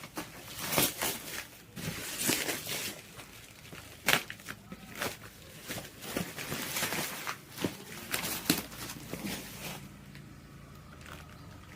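Irregular rustling and crinkling with scattered knocks, as of plastic wrapping and parts being handled; it quietens near the end. No vacuum motor is running.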